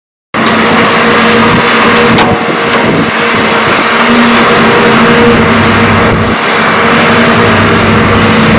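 Hitachi ZAXIS excavators' diesel engines running steadily at working speed with the hiss of their hydraulics as they dig and load soil, with a single clank about two seconds in.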